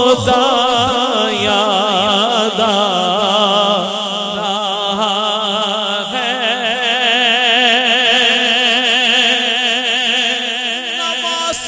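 A man sings a naat solo into a microphone over a sound system: long, held melismatic phrases with a strong, even wavering vibrato. A steady low drone runs beneath the voice.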